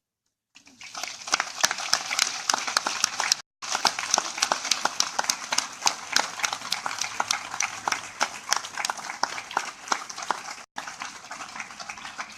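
Crowd applauding with a dense patter of hand claps, starting about half a second in and cutting out briefly twice.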